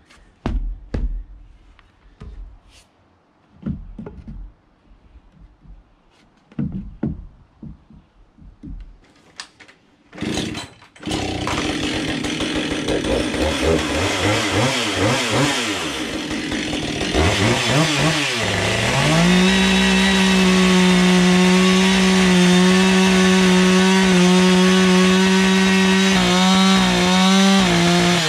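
Scattered knocks and thumps for about the first ten seconds, then a gas chainsaw running. Its engine speed wavers at first, then rises to full throttle and holds steady as it cuts into a 4x4 post, with a brief dip near the end.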